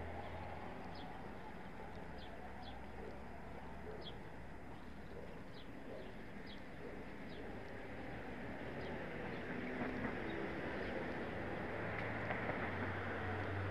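A small bird chirping over and over, short high chirps about once a second, over a steady background of street traffic, with a low vehicle rumble at the start and again near the end.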